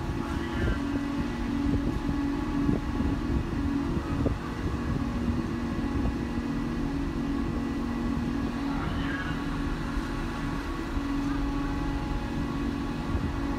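Steady hum of a large berthed car ferry's onboard machinery, such as its generators and ventilation fans: a constant low drone with a few steady higher tones above it, under an uneven low rumble of wind on the microphone.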